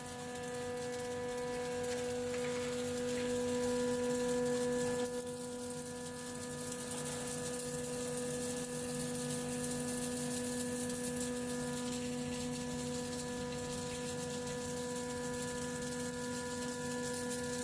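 A 20-ton-per-day flake ice machine running under test: a steady mechanical hum with a pitched drone and overtones, over a steady high hiss. The hum eases a little about five seconds in.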